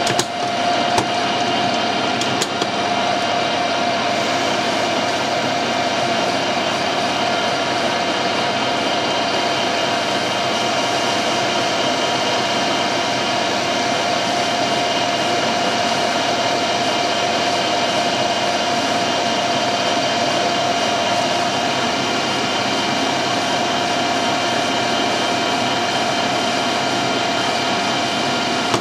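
Metal lathe running steadily with a constant whine while a carbide-insert tool turns a pin held in the chuck. A few light clicks near the start.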